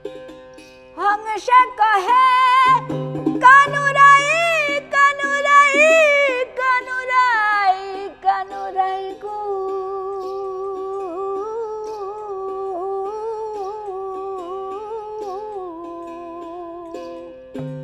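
A woman singing a Bengali Baul devotional song in long, ornamented phrases with heavy vibrato, high at first and then settling into a lower held line. She accompanies herself on a plucked one-string ektara drone and a small duggi kettle drum, whose low strokes drop out partway through and come back at the end.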